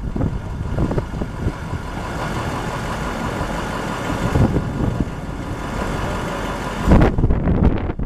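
The truck's 6.0-litre V8 diesel engine running steadily at idle while powering the aerial boom. Gusts of wind buffet the microphone, the strongest near the end.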